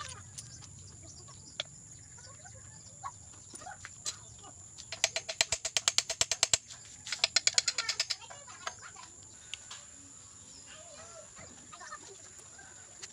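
Ratchet wrench clicking in two quick runs, about five and seven seconds in, with scattered single tool clicks and knocks around them, as bolts are worked loose while a motorcycle engine is stripped down.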